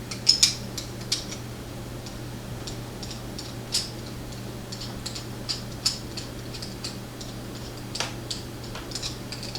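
Phillips screwdriver working a screw in a Yale padlock: scattered light metallic clicks and taps, several close together about half a second in, then one every second or two. A steady low hum lies underneath.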